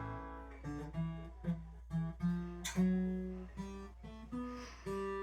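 Background music on acoustic guitar: single plucked notes in a slow melody, about two a second, over a steady low hum.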